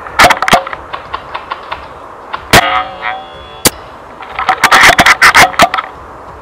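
Rapid bursts of airsoft BBs from incoming automatic fire clattering against the sniper's rifle and the cover around it. The clattering comes in dense bursts at the start and again past the middle, with one sharp hit about two and a half seconds in that rings briefly.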